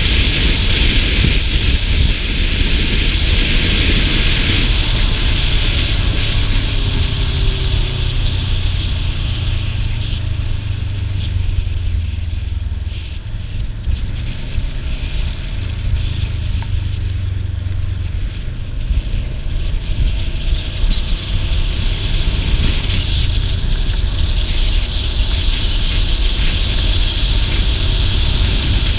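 Wind rushing over the microphone and a motorcycle engine running at road speed, easing off a little around the middle for a bend and then picking up again.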